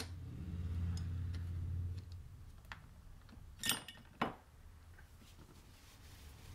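Small metal gearbox parts being handled on a workbench: a low rub for the first couple of seconds, then a few light clinks and two louder knocks a little past the middle.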